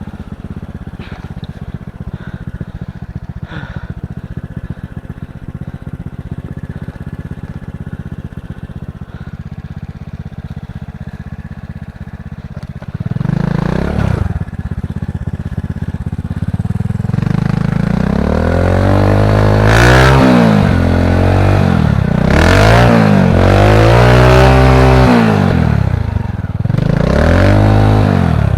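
Trail motorbike with a Honda Supra X 125 single-cylinder four-stroke engine, running steadily at low revs, then blipped about 13 seconds in. From about 17 seconds its engine speed rises and falls several times, louder.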